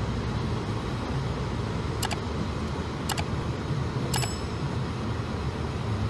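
Steady low rumble of a car driving on a snow-covered road, heard from inside the cabin. Three sharp clicks about a second apart come through it, the last with a short bell-like ring: the sound effects of a like/subscribe/bell-button overlay.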